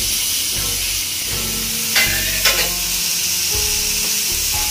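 Chopped tomatoes, onions, garlic and green chilli sizzling in melted butter in a frying pan, a steady frying hiss. Two sharp knocks come about two seconds in, half a second apart.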